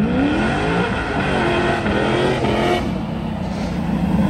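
Car engine accelerating hard, its revs climbing sharply at the start and then staying high.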